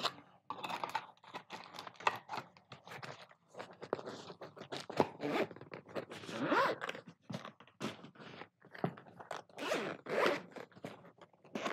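Zippers on padded, zippered camera accessory cases being pulled open and shut, a run of short rasping zip strokes mixed with light clicks and rustle as the cases are handled.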